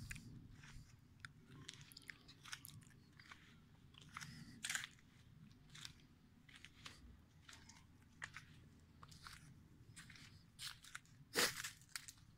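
Faint, irregular clicks and crunches from the recording phone being handled and carried on foot, with a louder crackle about eleven seconds in. The motorcycle's engine is not running.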